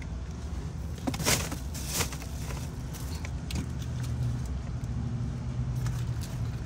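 Vehicle engine idling, a steady low hum heard from inside the cabin, with two brief rustles about a second and two seconds in.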